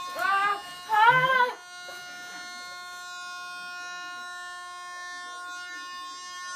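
Air horn app blaring through a phone speaker: one steady, continuous horn tone held throughout. Two short, loud cries from a voice break over it in the first second and a half, the second one the loudest.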